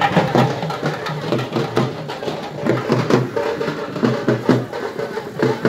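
Drums played with sticks in fast, sharp beats, dense and continuous, as from a procession's percussion band.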